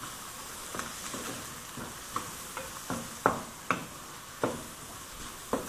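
Ground pork and chopped onion sizzling in a stainless steel pan while a wooden spoon stirs them. The spoon scrapes and knocks against the pan in a string of irregular sharp strokes over a steady frying hiss.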